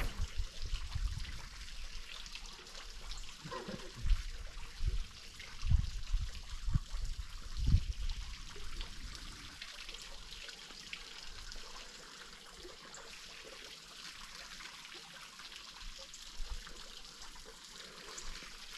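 Water lapping and trickling against a boat, with several dull low thumps in the first half, then a steady faint hiss of water.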